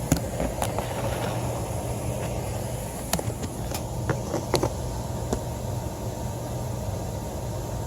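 Steady mechanical hum of running HVAC equipment, with a few short clicks and taps scattered through it.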